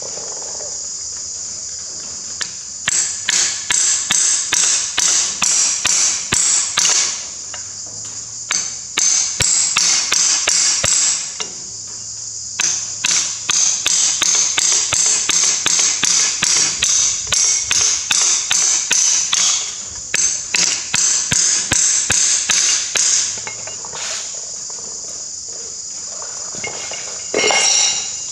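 A ratcheting spanner clicking in quick back-and-forth strokes as the timing gear's centre fixing is done up tight, in four spells between about 3 and 23 seconds. Crickets chirp steadily behind it.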